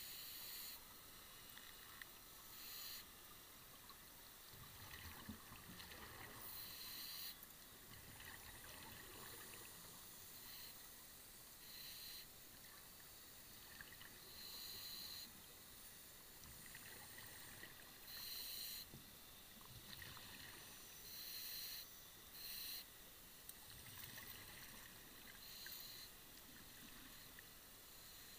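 Scuba divers' exhaled bubbles rushing out of their regulators, heard underwater as short hissing bursts every one to three seconds over a faint steady hiss.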